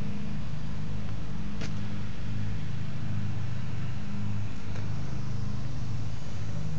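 Steady low mechanical hum from a running machine, with one sharp click about a second and a half in.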